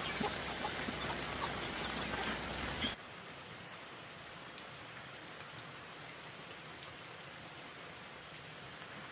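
Steady crackling noise with scattered ticks, which cuts off sharply about three seconds in to a quieter steady hiss with a thin, high, constant whine.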